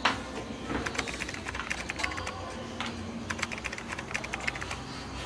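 Typing on a computer keyboard: runs of quick key clicks with short pauses. A single sharp knock, the loudest sound, comes right at the start.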